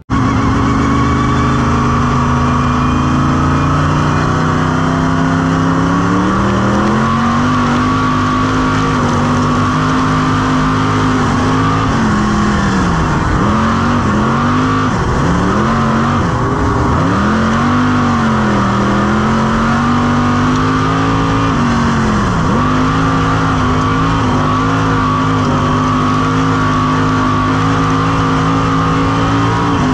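Stock car's V8 engine heard from inside the cockpit, running loud and continuous. It holds low at first, climbs in pitch about six seconds in, then falls and rises several times as the revs drop and pick up again, before holding high and dipping once more near the end.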